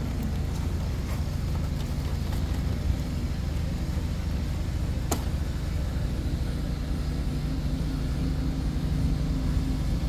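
Steady low hum of running machinery, with one sharp click about halfway through.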